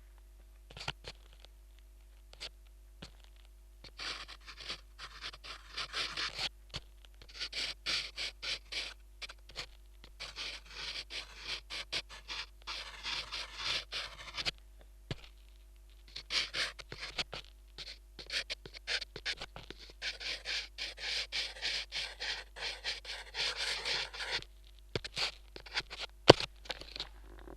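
Drawing on a surface picked up through a DIY piezo contact microphone: a few scattered taps, then several runs of rapid scratching and scraping strokes with short pauses between them. A sharp knock comes near the end, over a steady low electrical hum.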